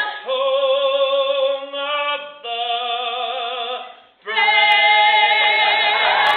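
A woman and a man singing a duet in long held notes with vibrato, in three phrases, building to a big held final note. Audience applause breaks out right at the end.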